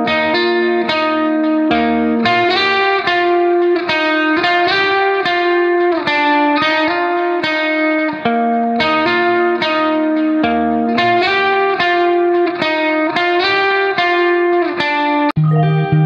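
Background music: a plucked guitar melody of quick, evenly spaced notes, changing to a new passage with a deeper bass line near the end.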